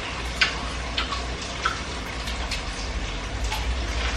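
Wet smacking clicks of a mouth chewing juicy watermelon, a few sharper smacks in the first two seconds, over a steady low hum.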